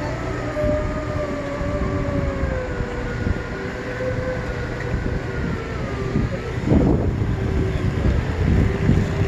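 Segway personal transporter's electric drive motors whining as it rolls, the pitch sliding slowly down and then holding steady, over a low rumble.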